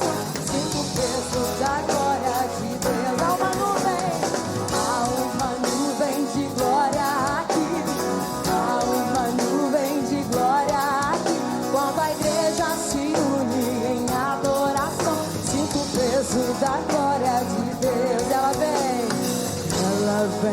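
Gospel worship song played by a band, with singing.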